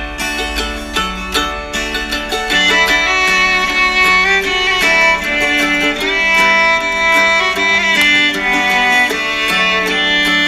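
Background instrumental music: short plucked notes at first, then a melody of long held notes comes in about two and a half seconds in.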